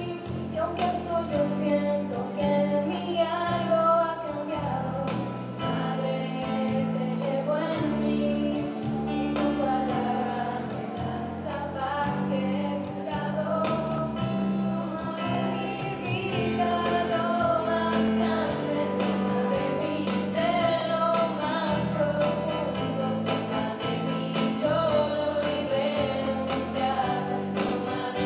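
Music: a song with singing over held bass notes and a steady beat.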